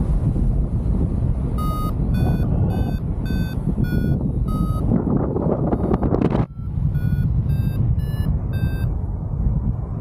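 Paragliding variometer sounding climb beeps, about two a second, in two runs; in the second run near the end each beep is higher than the last, the sign of stronger lift. Steady wind rush on the microphone underneath.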